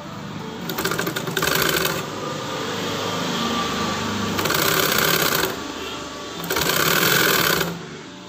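Sewing machine stitching piping onto a neckline. It runs in three louder bursts of about a second each and runs more quietly between them, as the fabric is guided along the seam.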